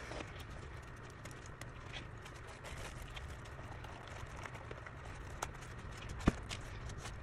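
Faint handling sounds: scattered light clicks and rustles of a wired, jewel-studded ribbon and artificial stems being worked through a floral arrangement, with one sharp tap about six seconds in, over a low steady hum.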